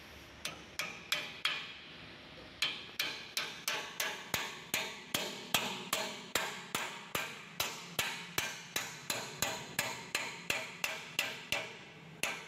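A hammer striking metal in rapid, even blows of about three a second, each with a short metallic ring, during work on a rotovator's side drive. A few scattered taps come first, then the steady run of strikes.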